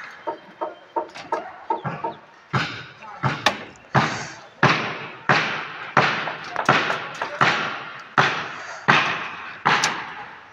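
Hammer blows, a sharp bang roughly every three quarters of a second with a short ring after each, following a run of quicker, lighter taps in the first two seconds.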